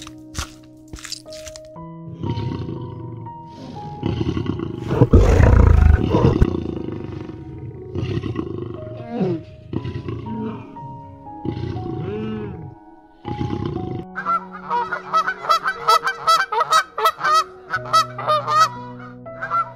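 Lion roaring in a series of deep calls, loudest about five seconds in, then from about fourteen seconds in a flock of domestic geese honking in quick repeated calls, over soft background music.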